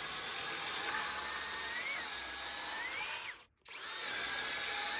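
Flex FX1671 compact right-angle drill running under load while boring wood with a 1.5-inch Irwin Speedbor spade bit; the motor whine rises and sags in pitch as the bit bites. It breaks off abruptly a little past halfway, then resumes.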